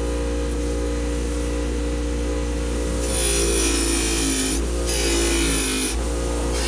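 Bench grinder motor running a wire brush wheel, with a steady hum; from about three seconds in, the wire wheel scrubs against the steel lamp shade with a loud hissing scrape, stripping old paint and grease down to bare steel, lifting off briefly twice.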